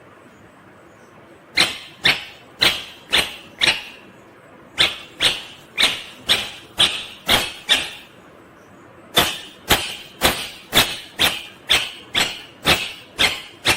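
Indian ringneck parrot giving loud, sharp repeated calls, about two a second. They come in three runs of five, seven and ten calls, starting about a second and a half in.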